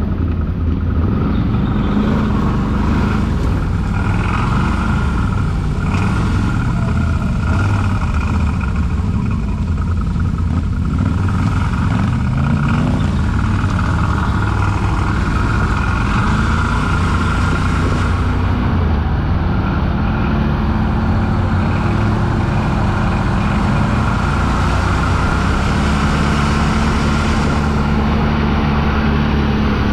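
ATV engine running under way along a dirt trail, its pitch rising and falling repeatedly as the throttle is worked.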